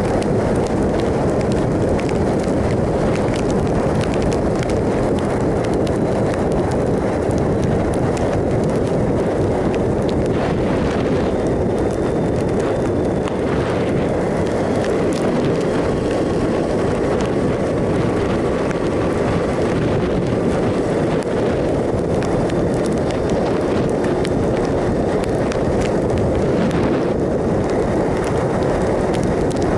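2007 Triumph Sprint ST 1050 being ridden: the steady drone of its three-cylinder engine under a constant rush of wind on the microphone.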